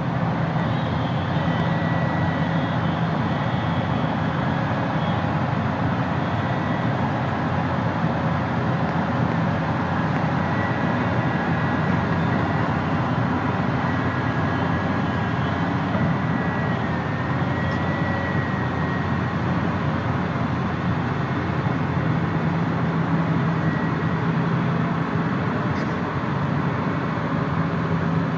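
SANY crawler excavator's diesel engine running steadily with a constant low hum.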